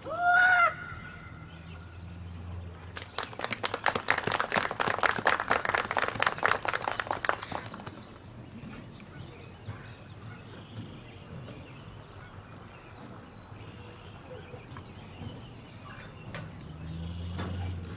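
A short, loud high-pitched call or whistle that rises and then holds for under a second, followed about three seconds in by roughly five seconds of spectators clapping.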